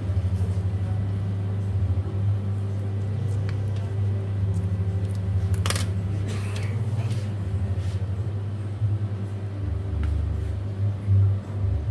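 Steady low hum of commercial kitchen equipment running, with a single sharp clack about six seconds in.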